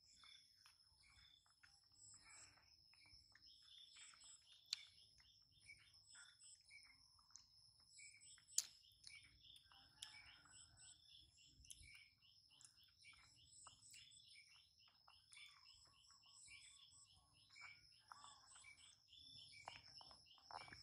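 Faint outdoor background of birds chirping and a steady high insect drone, with a run of short repeated chirps several times a second and scattered small clicks, two of them sharper.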